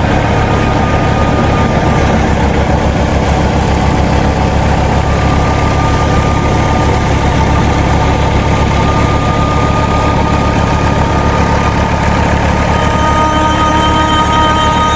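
Tractor engine running steadily under load, driving a wheat thresher, with a fast low pulsing. A thin, steady whine comes in about five seconds in and grows stronger near the end.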